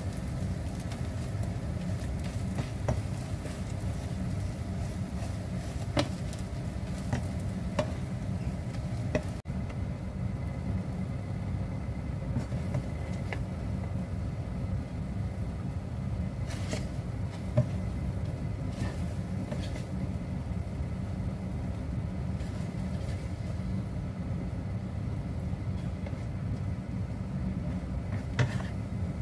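An omelet frying in a nonstick pan, with a plastic spatula scraping and tapping against the pan over a faint sizzle. After a cut about nine seconds in, the sizzle drops away. A steady low hum runs throughout, with a few single utensil clicks.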